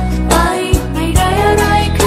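A song playing from a music video: a singer's voice over steady bass, with drum hits now and then.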